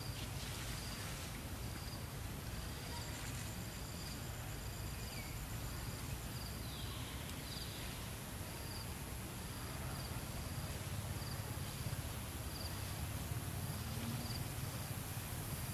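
An insect chirping steadily, a short high chirp repeating a little more than once a second, over a low steady rumble of outdoor ambience.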